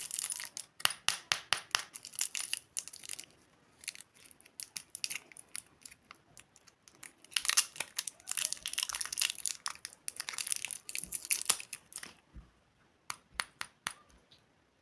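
Plastic candy wrappers being crinkled and torn open by hand, in two spells of dense crackling separated by a few scattered clicks, then a few sparse clicks near the end.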